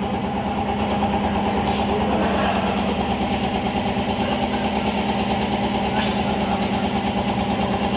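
A small engine idling steadily, a constant hum with a fast, even pulse.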